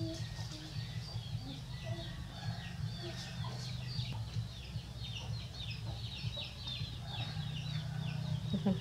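Chicks peeping: many short, high-pitched falling cheeps that overlap throughout, over a steady low hum.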